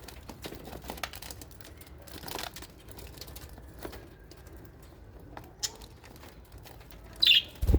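Small parrots (budgies and lovebirds) in an aviary: scattered scratches, clicks and rustles of birds moving about, with a short chirp, then near the end a louder call and a thump.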